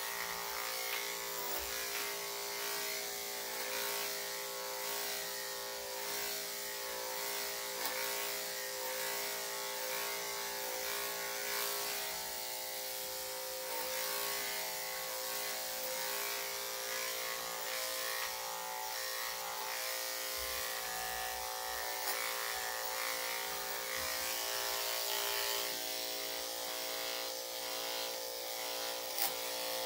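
Corded electric dog grooming clippers running with a steady buzz as they are drawn through a dog's coat. There is one short click near the end.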